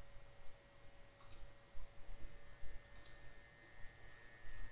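Computer mouse clicking: two quick pairs of clicks about two seconds apart, with a faint steady whine underneath.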